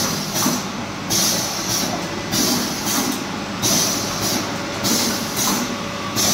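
Twin-head vertical pouch form-fill-seal machine running, with short hisses of air repeating roughly once a second over a steady mechanical clatter as it forms, fills and seals yoghurt pouches.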